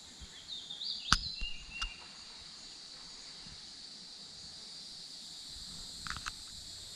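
Steady high-pitched insect chorus around a creek, with a few sharp clicks about a second in and again near the end, and a brief chirp early on.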